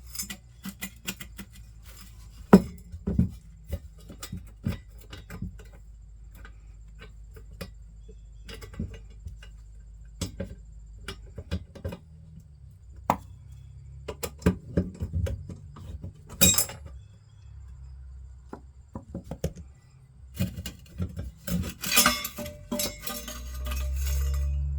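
Irregular metal clinks and knocks as tools and the steel muffler parts of a 1986 Honda ATC 350X exhaust are handled during disassembly, with one loud knock about 2.5 s in and a busier clatter near the end.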